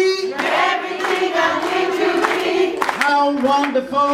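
A group singing a worship song together in long held notes, reaching the word 'wonderful' near the end.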